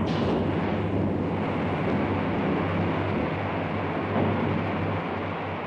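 Battle sound effects: a continuous heavy rumble, with a sharp crack right at the start.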